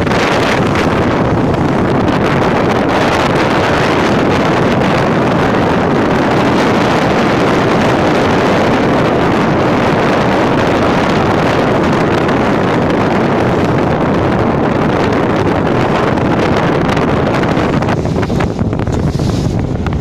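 Strong headwind buffeting the microphone, with water rushing and splashing along the hull of a small sailboat pushing through choppy waves.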